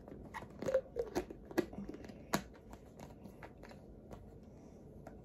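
Small plastic baby bottle being handled: a string of light plastic clicks and taps, about five in the first two and a half seconds, then only faint handling noise.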